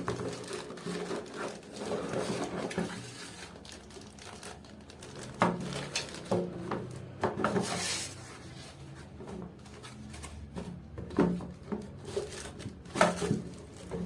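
Hands handling a computer power supply and its packaging: rustling and crinkling of wrapping with irregular clicks and knocks, the loudest knocks about five and a half, eleven and thirteen seconds in.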